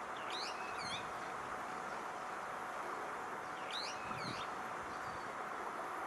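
Brown-eared bulbul calling: two short phrases of quick rising and falling notes, one near the start and one about three seconds later, over a steady background hiss.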